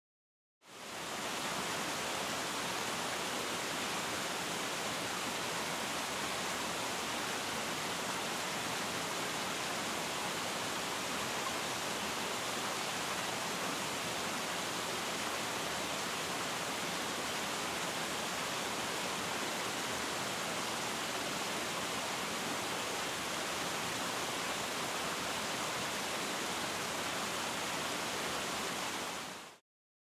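Sengataki Falls pouring into its plunge pool: a steady, even rush of falling water that fades in just after the start and fades out just before the end.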